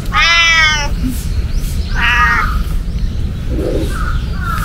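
Domestic cat meowing twice: a long meow right at the start and a shorter, higher one about two seconds in, over a steady low rumble.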